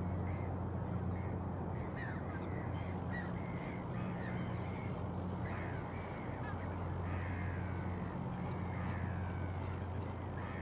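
Many short, harsh bird calls, each falling in pitch, over a steady low hum and an even background rush.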